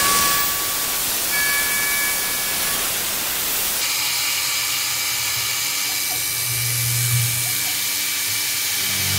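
CNC milling machine cutting aluminum under a mist-coolant sprayer: a steady air hiss from the mist coolant with several high, steady whines from the machine that switch in and out as the cut changes.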